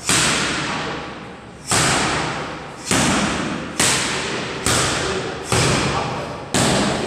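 Boxing gloves hitting focus mitts in a steady series of sharp smacks, about one a second, each one ringing out briefly in the hall.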